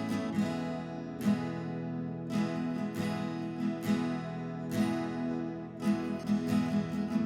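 Background music of a strummed acoustic guitar, its chords struck at a steady, unhurried pace.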